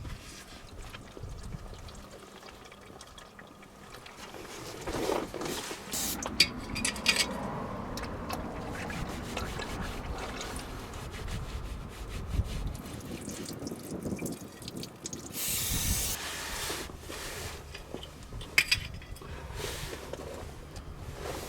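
Engine oil pouring and trickling during an oil change on a Land Cruiser Prado, with scattered knocks and rubbing from handling parts and containers.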